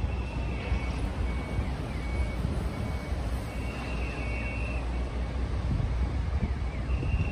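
Street traffic heard as a steady low rumble, with faint short high beeps repeating about twice a second and a few brief falling chirps over it.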